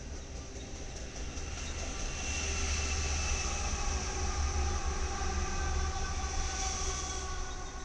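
Diesel locomotives placed mid-train in a double-stack container freight passing close by: a steady engine drone and rumble over rolling wheels on the rails. It grows louder about two seconds in as the units pass, then the stack cars roll on behind them.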